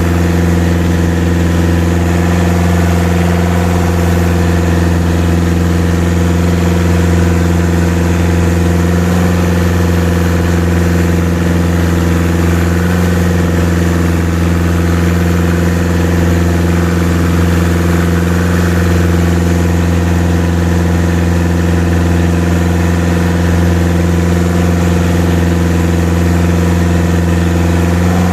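A boat engine running steadily at an even speed, with a constant drone and no change in pitch.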